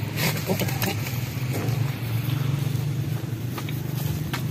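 An engine running steadily, a low even hum, with a few short clicks and knocks near the start and again near the end.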